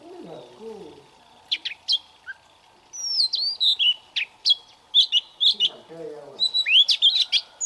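Oriental magpie-robin singing: a few sharp high notes, then from about three seconds in a rapid, varied run of clear whistles and down-slurred notes that grows louder toward the end.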